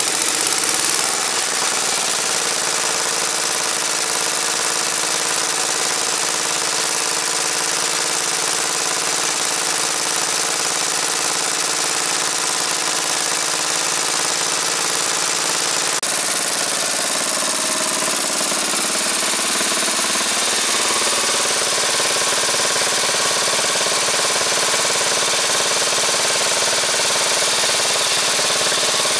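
Ransomes Matador mower's single-cylinder JAP petrol engine running steadily, having just started. Its speed picks up slightly about two-thirds of the way through.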